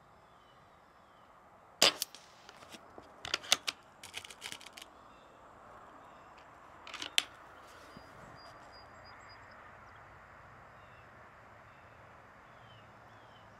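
Crosman Prospect .22 PCP air rifle being handled: a sharp clack about two seconds in, then a run of smaller clicks and clacks, and one more sharp click about seven seconds in. These are the metallic sounds of the action being worked and a pellet being loaded by hand between shots.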